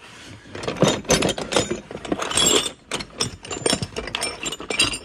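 Metal hand tools clattering and clinking against one another as a hand rummages through them in a cardboard box: pliers, chisels and air-hammer bits knocking together in many irregular clicks.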